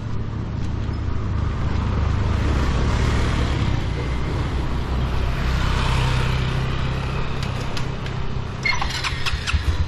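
Road traffic close by: a motor vehicle's engine running steadily, and the noise of a vehicle passing swells and fades in the middle. A few sharp clicks come near the end.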